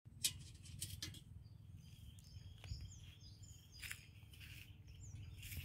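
Birds chirping faintly over a low outdoor rumble, in short high calls, some sliding down in pitch, spread through the middle and again near the end. There is a sharp click near the start and a few softer knocks.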